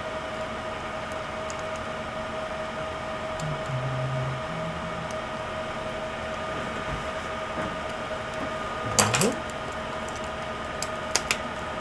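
A plastic pry tool clicks and scrapes as it works the laptop screen's cable connector loose, loudest about nine seconds in, with a couple of small clicks near the end. A steady hum runs underneath.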